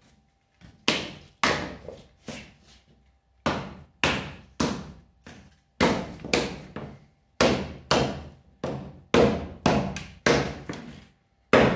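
Bushcraft knife chopping repeatedly into a dry branch resting on a wooden stump: about twenty sharp blade-on-wood strikes, roughly two a second, starting about a second in.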